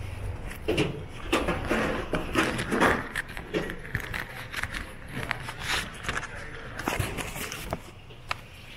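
Indistinct voices mixed with short clicks and clatter, dying down near the end.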